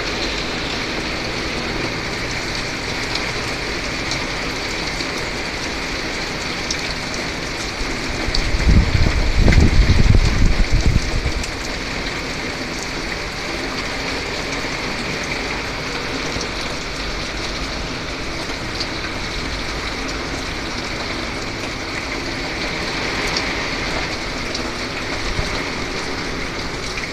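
Steady rain and wind from a hurricane's outer bands. A strong gust buffets the microphone with a low rumble for a few seconds near the middle.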